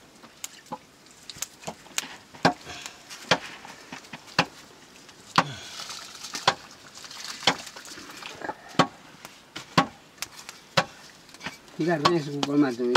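Dry rice being poured from a metal bowl into a pot: a soft hiss of falling grains midway, over sharp knocks that come about once a second. A man's voice comes in near the end.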